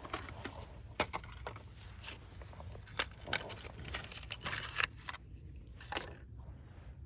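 Small handling noises of tools and parts: scattered light clicks and taps with some rustling, and a sharp click at the very end, over a steady low rumble.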